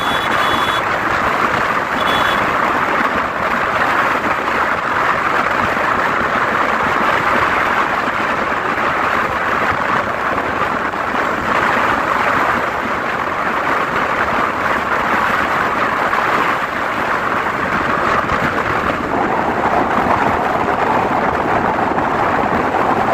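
Steady running noise of a moving bus, engine, road and wind together, with two short high beeps in the first few seconds.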